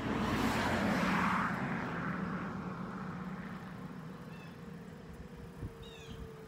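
A car passing by: a rush of tyre and engine noise that swells within the first second and fades away over the next few seconds. A few short descending chirps near the end.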